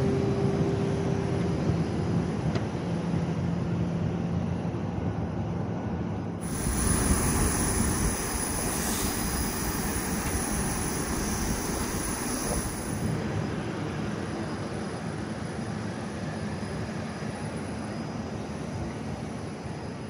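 Steady rush of jet aircraft noise. A brighter hiss comes in about six seconds in and drops away around thirteen seconds, and the noise then eases off slowly.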